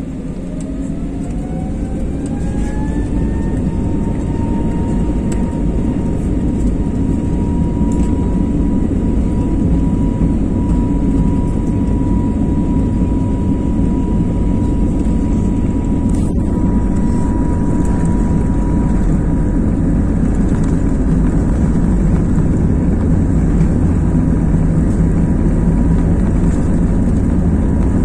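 Airliner's engines spooling up for takeoff, heard from inside the cabin: a whine rises over the first few seconds and then holds steady, over a low rumble that grows gradually louder as the plane accelerates down the runway.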